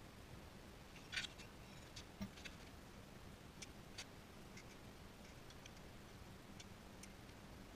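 Faint, irregular clicks and light taps from hand work on the underside of a car: fasteners and parts being handled at the undertray. The most prominent cluster comes about a second in.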